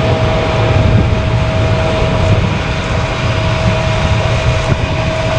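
Harvest machinery's diesel engine running steadily under load, a continuous low rumble and hiss with a steady high whine over it.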